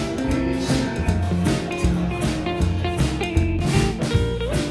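Background music: a guitar-led tune with drums keeping a steady beat.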